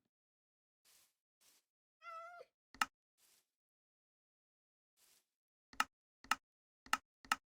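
A cat gives one short wavering meow that drops in pitch at the end. It is followed by a series of sharp clicks, four of them coming about half a second apart near the end.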